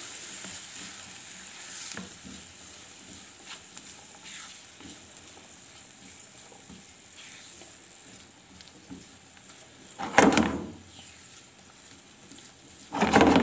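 Diced carrot, capsicum and sweetcorn frying quietly in oil in a non-stick pan while being stirred with a spatula: a low sizzle with light scraping ticks. Two much louder bursts of noise come about ten seconds in and again near the end.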